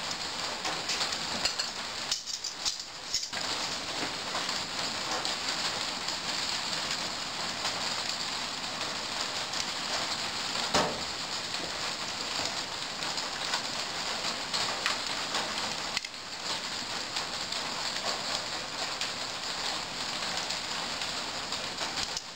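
A steady hiss with a fine crackling texture, like rain or frying, and one sharper tap about eleven seconds in.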